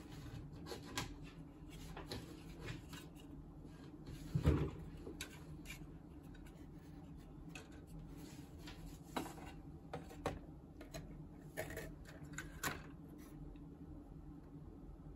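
Styrene plastic model-kit parts being handled against each other and the cardboard box: scattered light clicks and rubbing, with one louder knock about four and a half seconds in.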